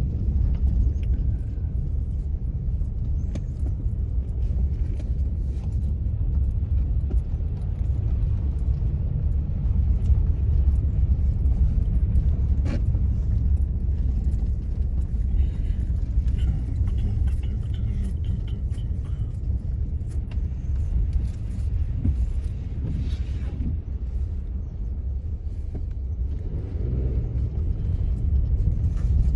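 Car driving at low speed, a steady low engine and road rumble heard from inside the cabin.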